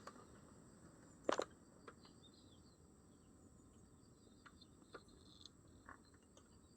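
Faint steady insect trill, with one sharp knock a little over a second in and a few lighter clicks after it.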